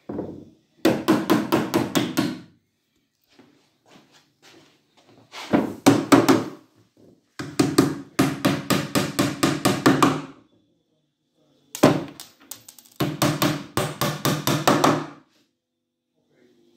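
Hammer driving small nails through a fibreboard back panel into a pine bookcase frame, in several runs of quick taps, about six a second, with short pauses between runs.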